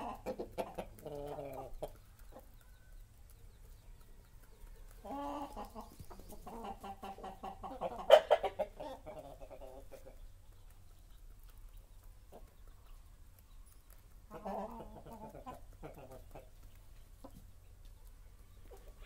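Aseel chickens clucking and calling in several bouts. The longest and loudest call comes near the middle, with quieter gaps between bouts.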